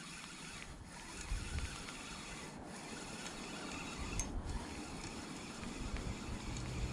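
Spinning reel being cranked to bring in a hooked fish: an even rubbing, grinding noise.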